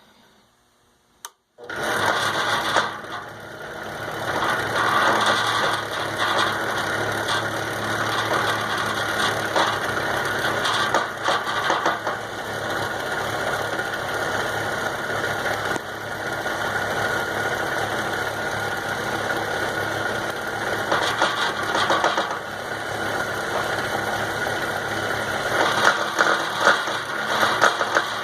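Lathe switched on about two seconds in, then running steadily with a steady motor tone and irregular clicking throughout, sharper knocks near the end: the unwanted noise the lathe is making.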